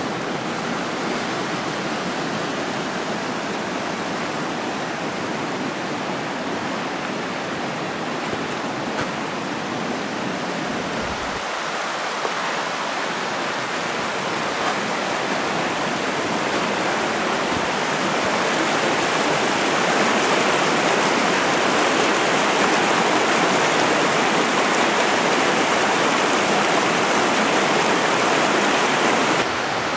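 Shallow, fast stream rushing over rocks and gravel, a steady noise that grows louder past the middle.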